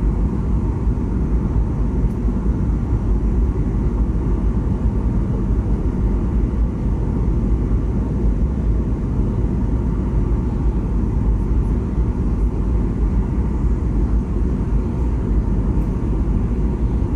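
Steady low rumble of engine and airflow noise inside an airliner's cabin in flight, heavy in the bass and unchanging.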